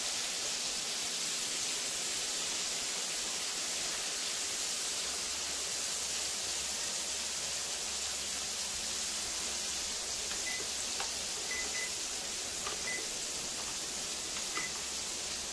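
Flour-dredged chicken pieces shallow-frying in hot oil in a skillet, a steady sizzle, with a few small pops and crackles in the last few seconds.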